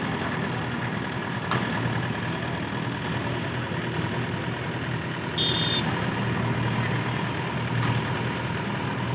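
Engine idling steadily, with a brief high-pitched beep a little past halfway and a sharp click early on.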